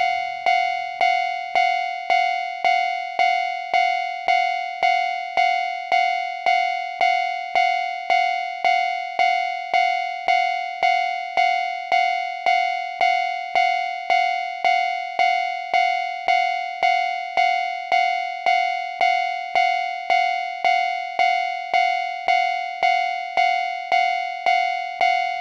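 Japanese railroad crossing warning bell ringing steadily, about two strikes a second, each strike the same ringing pitch: the signal that a train is approaching.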